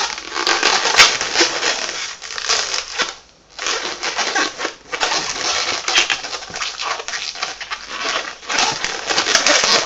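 Latex modelling balloon squeaking and creaking as it is squeezed and twisted into bubbles in the hands. A dense run of rubbery squeaks with a short pause about three seconds in.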